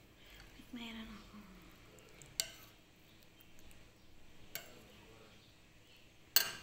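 Three sharp clinks of a utensil against cookware, the last and loudest near the end. A short pitched sound falls in pitch about a second in.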